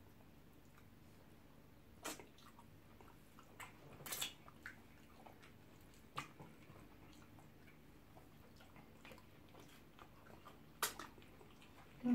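Close-up eating sounds: quiet chewing and a few sharp, wet mouth smacks a couple of seconds apart, over low room tone.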